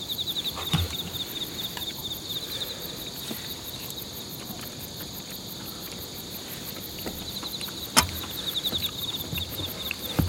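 Night insects chirping steadily, with a louder pulsing chirp near the start and again about seven and a half seconds in. Chopsticks clicking against a wooden bowl and soft eating sounds, with one sharp click about eight seconds in.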